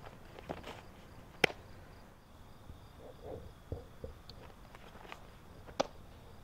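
Two sharp pops about four seconds apart, a pitched softball smacking into a catcher's mitt, with soft scuffing footsteps on the infield dirt between them. Crickets chirp faintly in the background.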